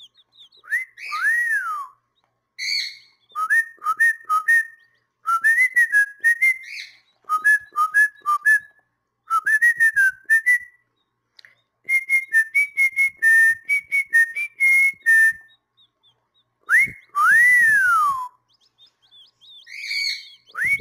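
Pet bird whistling: runs of short, clear whistled notes in quick phrases, with long whistles that rise and then fall about a second in and again near the end.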